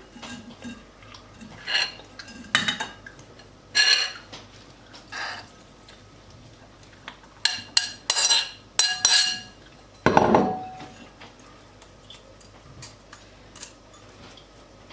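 Spoon and kitchenware clinking and scraping against a strainer and bowl while grated onion is strained for its juice. The strokes come irregularly, with a cluster about eight seconds in and a heavier knock about ten seconds in.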